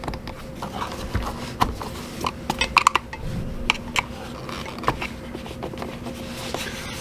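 Small screwdriver clicking and scraping against the plastic snap-in water valve of a Dometic RV toilet while prying at its retaining tab: a run of small irregular clicks and taps over a faint steady hum.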